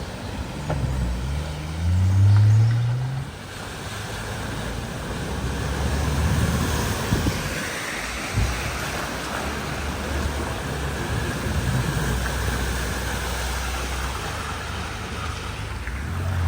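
Car engine revving up with a rising note, then a long steady rush of water spraying and washing as the car drives through a flooded ford, its engine running underneath.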